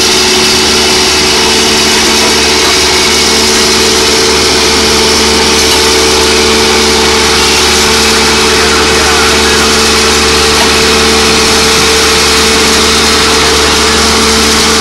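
Engine of a rail-mounted tie-replacement machine running steadily and loudly up close: a constant hum with a hiss over it, unchanging in pitch.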